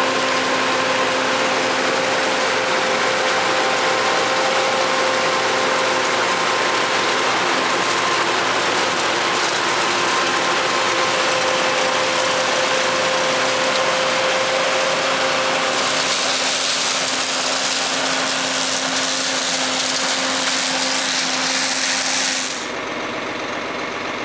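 John Deere 9400 combine running while harvesting soybeans: a steady mechanical clatter with a constant hum under it. The sound changes about two-thirds of the way through and turns quieter shortly before the end.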